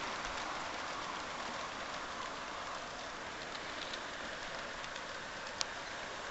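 G scale model freight train rolling along garden railway track: a steady rolling rush of many wheels on the rails with a few light clicks, growing a little fainter as the train moves away.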